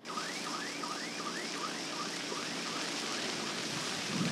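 Car alarm sounding, a short rising electronic whoop repeated about two and a half times a second, over a steady rushing hiss.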